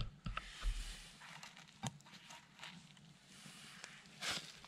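Faint handling of a cast iron Dutch oven as it is opened to check the pasta: a few light metal clicks and knocks, then a short scraping rustle about four seconds in.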